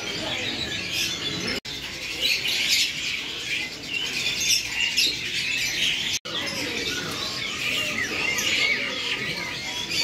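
Dense chorus of many songbirds chirping and twittering at once, many short overlapping calls, over a low background murmur. The sound drops out for an instant twice.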